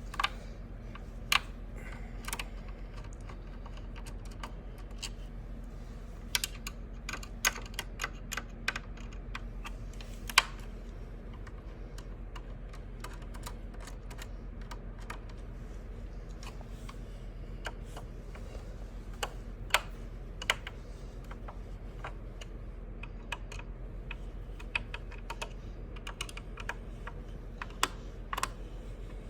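Scattered clicks and taps of a screwdriver and small metal parts while a sewing machine is being taken apart, some single and some in quick runs of several, over a steady low hum.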